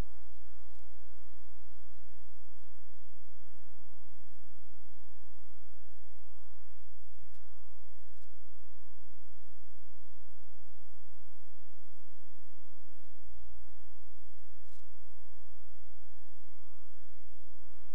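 Steady low electrical hum with a buzz of overtones above it, unchanging throughout, with a few faint ticks.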